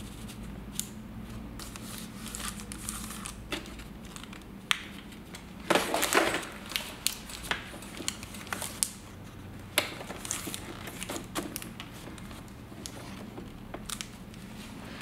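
Paper and plastic handling noise as a sheet of 8x10 instant-film positive paper is pushed and straightened in a Polaroid film holder: scattered rustles, crinkles and light clicks, with a louder rustle about six seconds in.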